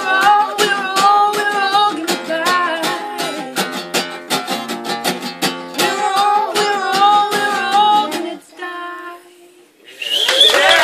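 Acoustic guitar strummed with a woman singing, ending on a final chord that rings out about eight seconds in. A cheer and clapping start near the end.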